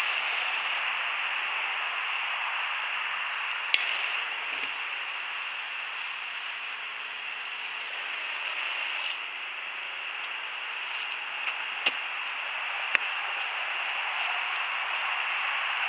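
Steady hiss of a handheld butane torch flame, broken by a few sharp clicks.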